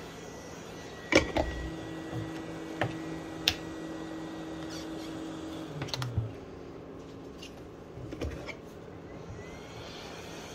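Handheld hot-air blower running steadily with a faint motor hum, aimed at the phone's back glass to warm it, with several sharp clicks and knocks from handling. The loudest knock comes about a second in.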